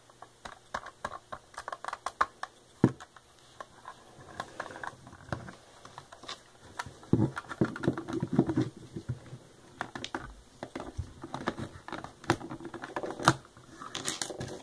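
Plastic Lego bricks clicking and knocking under the fingers as a small brick-built safe is handled and its sliding latch tile is pulled. The clicks are light, rapid and irregular, with a few sharper knocks.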